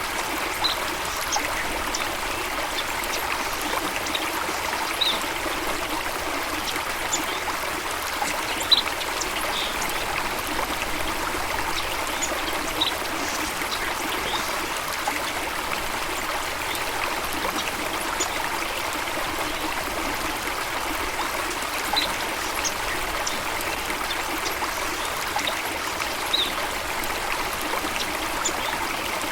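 Running water, a stream flowing and trickling steadily over stones, with short high-pitched blips every few seconds.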